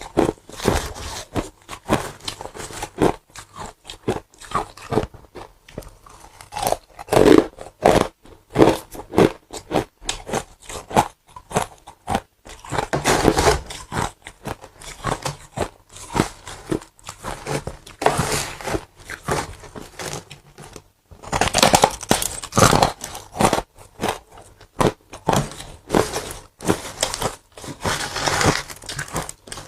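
A person biting and chewing pieces of a broken ice bowl and humidifier frost: a continual series of crunches, bunched more densely in several bursts.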